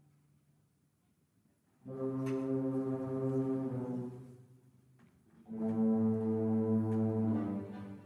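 School symphony orchestra playing two long, held chords with the brass to the fore. The first comes in about two seconds in after a near-silent pause and dies away; the second, louder, comes in after another short pause just past halfway.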